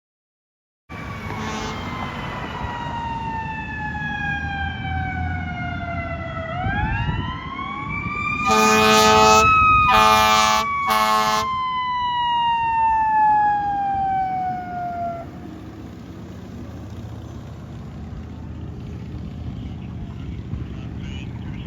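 Fire engine responding: its siren wails down, rises again, then winds down and fades. Three short air horn blasts in quick succession come near the top of the rise, over the truck's engine and road noise.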